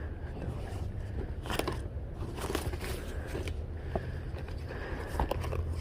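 Hands handling and rummaging through items, with light scraping, crackling and a few small clicks over a low steady hum.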